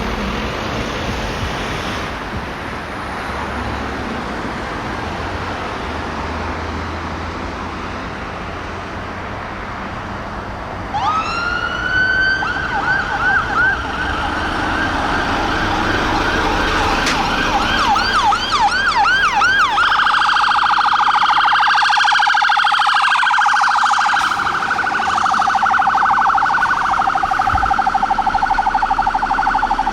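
Fire engine leaving on an emergency call: its engine and road noise at first, then its siren starts with a rising wail, cycles up and down about twice a second, and about two-thirds of the way in switches to a much faster warble.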